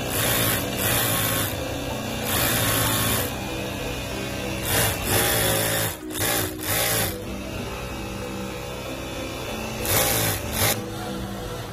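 Juki industrial sewing machine stitching fabric in short runs of about half a second to a second, stopping and starting several times, with a steady low hum between the runs.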